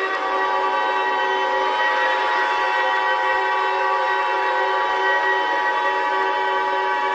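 Emergency Alert System two-tone attention signal: a steady, horn-like chord of two tones, held unbroken, sounding over other steady droning tones.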